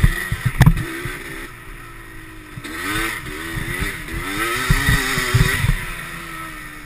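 Quad ATV engine revving up and down as it is ridden over a rough dirt trail, with sharp knocks about half a second in and again around five seconds. The engine note falls away near the end as the rider backs off the throttle.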